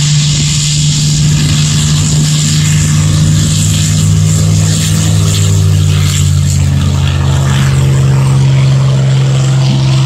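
P-51 Mustang's Merlin V12 engine and propeller running steadily as the fighter taxis past, with the pitch shifting slightly as it goes by about six seconds in.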